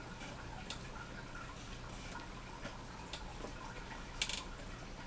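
Quiet room with a low steady hum and a few faint clicks, then a quick double click a little over four seconds in.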